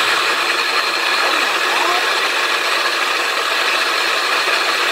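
Ninja Precision food processor with its auto-spiralizer attachment running, a loud, steady whir of the motor and spinning spiralizer blade disc as it cuts food into noodles.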